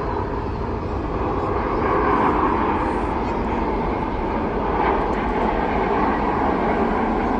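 A fixed-wing aircraft flying past, its engine noise a dense, steady rush that grows gradually louder.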